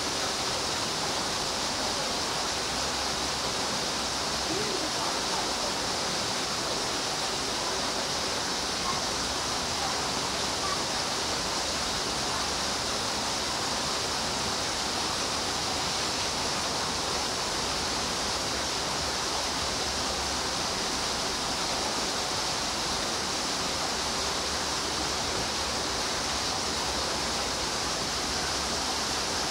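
Steady rushing noise of running water, even and unbroken throughout.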